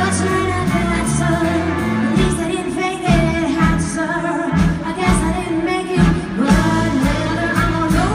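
A woman singing a Broadway show tune live into a microphone, backed by a band with drums.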